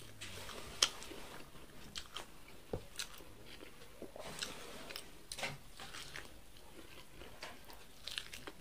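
A person chewing and biting corn on the cob: irregular sharp clicking mouth sounds, with a cluster of bites near the end.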